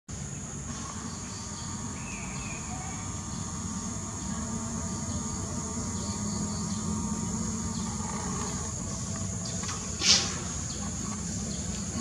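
Steady high-pitched insect chorus over a low rumble, with one sharp click about ten seconds in.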